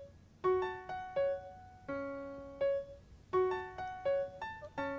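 Background piano music: a slow, gentle melody of single notes and light chords, each note ringing and fading.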